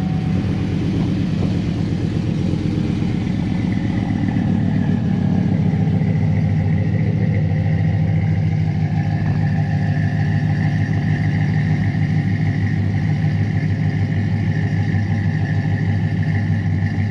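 Chevrolet Silverado 5.3-litre V8 with a BTR Stage 2 truck cam idling steadily, heard at the tailpipes through long-tube headers and a 4-inch-tip exhaust. The idle has a deep note and a slight lope from the cam.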